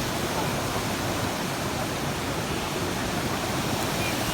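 Small waterfall on a stream, water falling and splashing in a steady rush.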